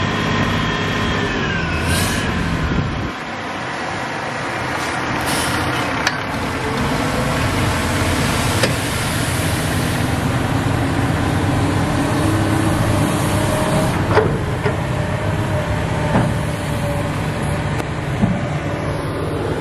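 Heavy diesel engines of a tipping dump truck and a Komatsu excavator running steadily while the truck's raised bed dumps sand. There is a short wavering whine about two seconds in and a single sharp knock about fourteen seconds in.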